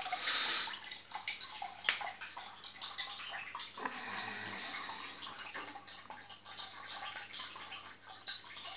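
Water splashing and dripping in a shallow plastic tub as turtles swim and bite at floating radicchio and lettuce leaves, with small irregular clicks.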